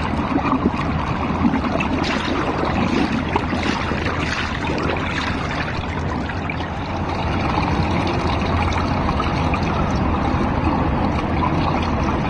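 Swimming-pool water sloshing and lapping against a camera held at the water's surface, a steady watery noise with a constant low rumble underneath.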